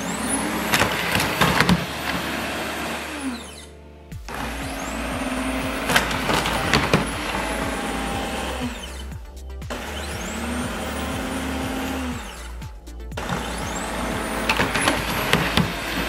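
Midea M7 robot vacuum running as it drives over a raised floor threshold: its suction fan whine rises, holds and falls away several times, with scattered clicks and knocks. Background music underneath.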